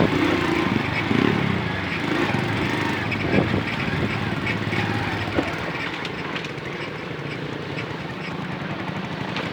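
Moped engine running steadily on the move, its level easing off slightly over the seconds.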